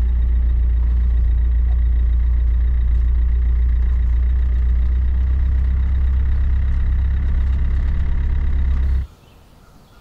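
Land Rover Defender's engine and drivetrain droning steadily and loudly, heard from inside the cab while driving at low speed; the drone cuts off abruptly about nine seconds in.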